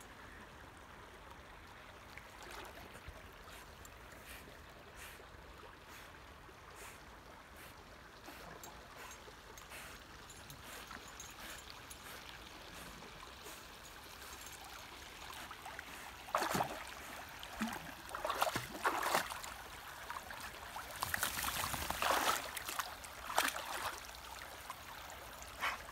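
River shallows trickling steadily, with an Akita dog splashing as it moves through the water; the splashes come in irregular, louder bursts from about two-thirds of the way through.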